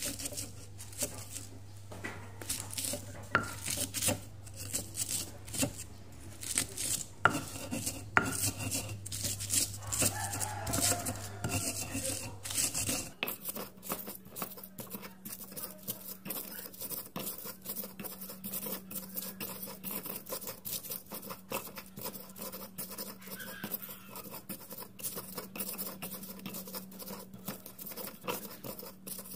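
Stone pestle (ulekan) crushing and grinding chillies, shallots, garlic and sugar on a flat stone mortar (cobek): irregular knocks and gritty scraping of stone on stone, turning into quicker, steadier grinding strokes about halfway through.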